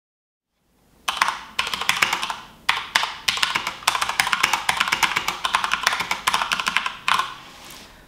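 HP OMEN Encoder mechanical keyboard with Cherry MX switches being typed on fast: a dense run of key clicks and clacks with a couple of short pauses, starting about a second in and tailing off near the end.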